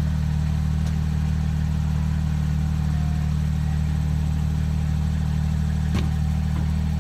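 Utility vehicle's engine idling steadily, heard from the driver's seat, with a single sharp knock about six seconds in.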